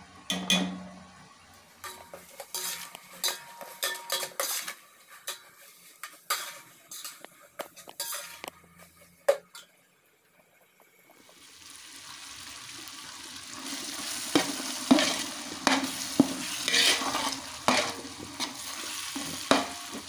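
Onions and tomatoes frying in oil in a cooking pot, stirred with a spoon that knocks and scrapes against the pot. The sizzle is faint at first, dies away briefly about halfway, then comes back as a louder, steady sizzle with the stirring going on.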